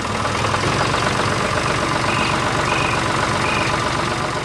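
Tractor engine running steadily with a low, even chugging rhythm. Three short high chirps come in the middle.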